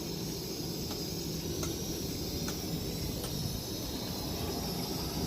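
Steady outdoor background noise: a low rumble under a steady high hiss, with a few faint clicks.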